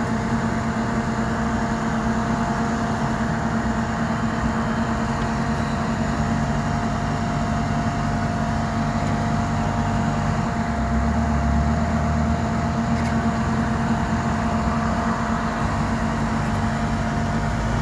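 Heavy truck towing a lowboy trailer, its engine running steadily on the move with a constant drone. A deeper low rumble comes in about ten seconds in.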